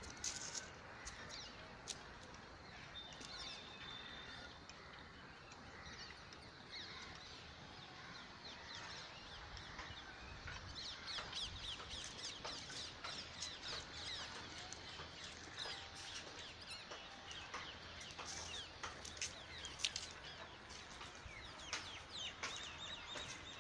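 Many small birds chirping and calling, the chirps growing much busier about halfway through, over a faint low outdoor rumble.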